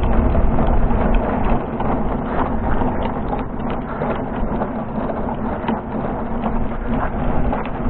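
Footsteps and the clatter and rattle of a heavy scrap item being carried on foot, a steady run of small irregular knocks over a low hum.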